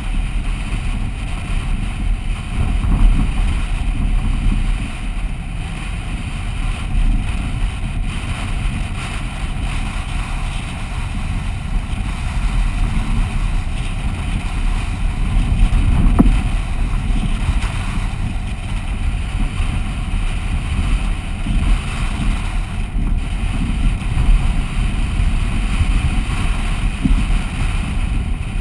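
Steady low rumble of wind buffeting the microphone of a camera mounted on a vehicle driving along beach sand, with the vehicle's running noise underneath. A brief louder knock comes a little past halfway.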